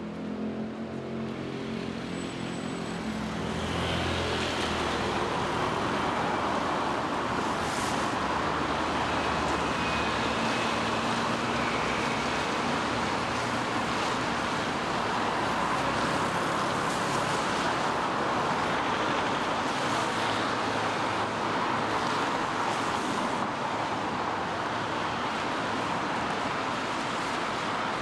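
Road traffic on a wet street: a vehicle engine hums low at first, then from a few seconds in a steady hiss of tyres on wet asphalt takes over.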